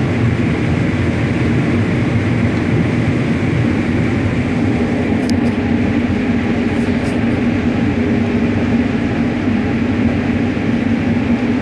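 Combine harvester running steadily while harvesting corn: a constant, even mechanical drone with a low hum, and a few faint ticks around the middle.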